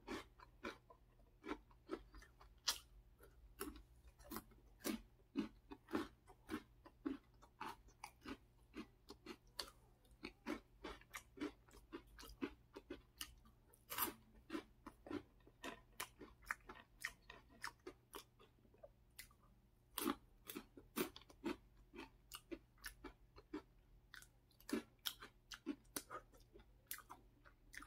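Close-miked chewing of Cheetos corn snacks: a steady run of small, crisp crunches, several a second.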